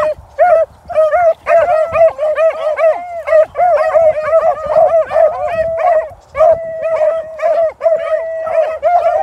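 Dog barking and yipping in a fast run of short, high calls, several a second, drawn out into a couple of longer held howls about six and a half and eight seconds in.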